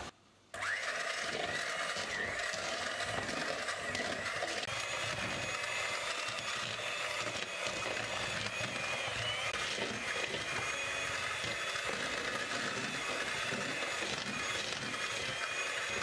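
Electric hand mixer starting about half a second in and then running steadily, its beaters whirring through cooked meat in a plastic bowl to shred it.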